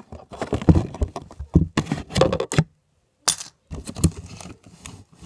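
Handling noise from a homemade cardboard shoebox vending machine: irregular knocks, taps and rattles as the box is worked by hand. The sound breaks off briefly near the middle, then a sharp knock follows.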